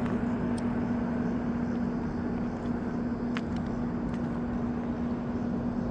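Steady rushing noise of a fast-rising flooded river, with a constant low hum running under it and a couple of faint clicks.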